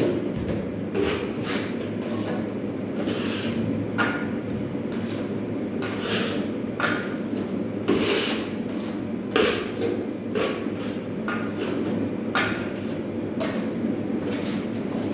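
Steel finishing knife scraping joint compound across drywall in short strokes, a sharp scrape every second or so, some with a brief metallic squeal, over a steady low hum.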